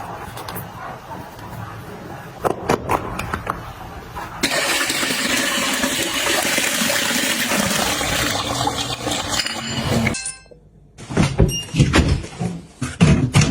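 Light clicks and knocks, then water rushing in a loud, steady hiss for about six seconds that cuts off suddenly. After a short pause comes a quick run of taps and knocks.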